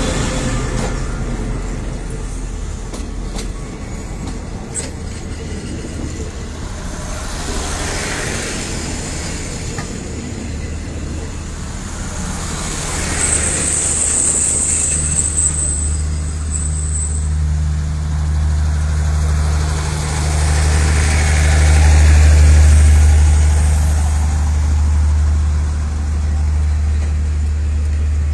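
Passenger coaches of a diesel-hauled express train rolling past at close range: a steady rumble of wheels on rail, with a low hum that grows louder in the second half and a brief high-pitched squeal about 13 seconds in.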